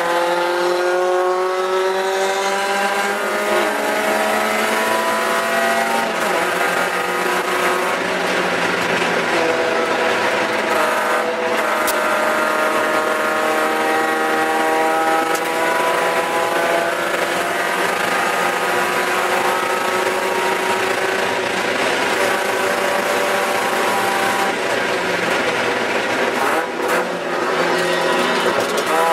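Spec Miata's four-cylinder engine at racing speed, heard from inside the cockpit, its revs climbing and falling again and again as the driver shifts gears and lifts for corners, with road and wind noise underneath.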